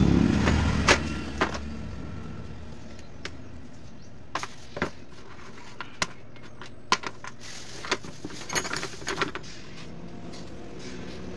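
Scattered sharp clicks and light taps of wires, metal spade terminals and pliers being handled on a plywood table, with a quick run of them about eight to nine seconds in. A motor vehicle's engine hum fades out over the first second or two.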